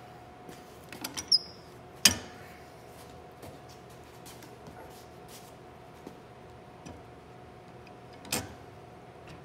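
Workbench handling sounds: a few light clicks with a brief squeak about a second in, then a sharp knock about two seconds in and another near the end, over a faint steady hum.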